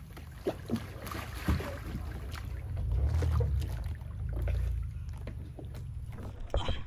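Water splashing and lapping around an Oru folding kayak, with a few short knocks on its plastic hull and a low rumble on the microphone that swells about halfway through.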